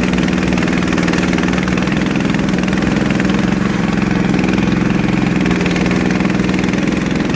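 Engine of a farm machine running steadily at an even speed, a constant low hum with no change in pitch.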